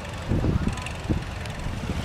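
Wind buffeting the microphone in a few low thumps, over a steady low engine rumble.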